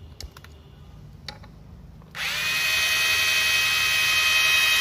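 A few faint handling clicks, then about two seconds in a Makita DHR171 18V cordless rotary hammer starts and runs steadily with a high whine, driving a self-drilling screw through galvanized steel box section with a nut-setter bit.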